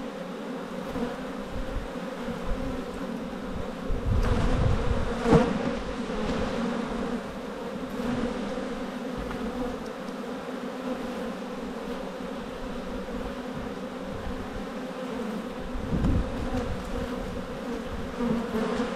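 A mass of honeybees buzzing steadily over an open hive box. A few knocks and scrapes of a metal hive tool prying at a frame come around five seconds in and again near sixteen seconds.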